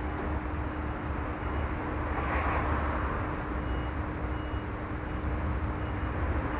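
Road traffic: a steady deep rumble of vehicles, with one vehicle passing and swelling about two seconds in, over a steady low hum.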